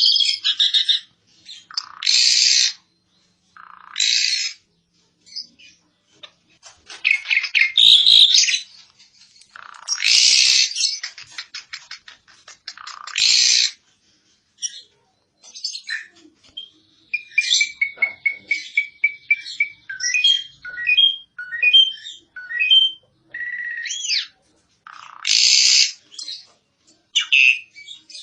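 Asian pied starling singing: a string of harsh, raspy chattering phrases with short gaps between them. A run of quick clear whistled notes falls in the middle.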